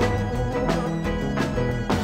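A mid-1960s rock band plays live on a soundboard recording: electric bass, a held high note and other sustained chord tones, with drum and cymbal hits about every half second.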